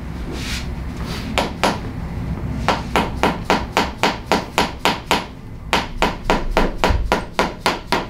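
Quick strikes from a chiropractor's red mallet tool worked against the back of a patient's thigh. Two strikes come about a second and a half in, then a steady run of about four a second, with a short pause just past the halfway mark.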